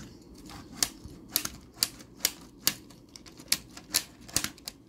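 Small plastic toy cars handled on a wooden tabletop, giving sharp plastic clicks and knocks about twice a second, fairly evenly spaced.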